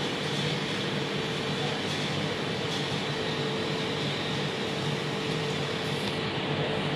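Steady hum and hiss of room ventilation machinery, with a constant low tone underneath.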